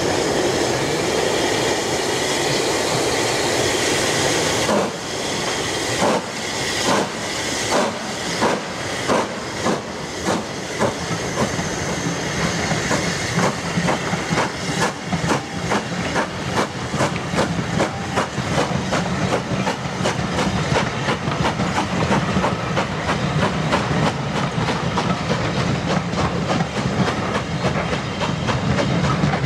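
Steam locomotive starting a train away: a steady loud hiss of steam for the first few seconds, then exhaust chuffs from about five seconds in, slow at first and quickening until they run together. The coaches' wheels rumble and clatter over the rail joints as the train gathers speed.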